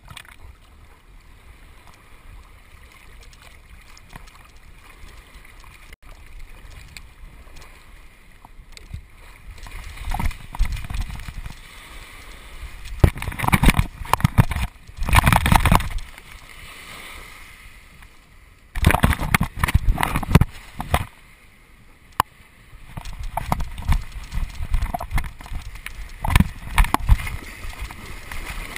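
Sea water splashing and sloshing around a chest-mounted GoPro on a golden retriever moving through shallow water. Low and steady at first, then loud rushes of splashing in several bursts from about a third of the way in.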